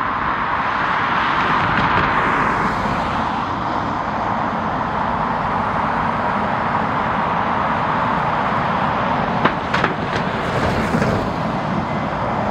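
Jet airliner engines running, a steady broad roar that swells slightly about two seconds in, with a few sharp clicks near the end.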